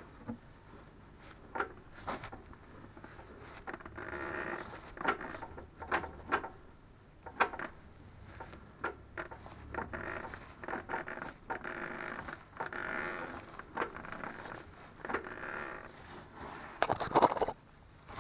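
Outer CV joint rubber boots on a Ford Focus 2's new Löbro front driveshafts squeaking and creaking in repeated irregular stretches, with sharp clicks between, loudest near the end. The squeak comes from the boots on almost-new driveshafts.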